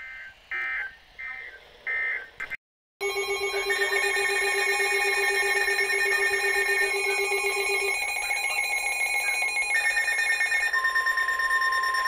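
Three short bursts of EAS digital end-of-message code from a weather radio, then several NOAA weather alert radios sounding their alarms at once. The alarms are a stack of steady electronic tones with a fast-pulsing low tone that stops about two-thirds of the way in. A steady 1050 Hz warning alert tone joins near the end, announcing a severe thunderstorm warning.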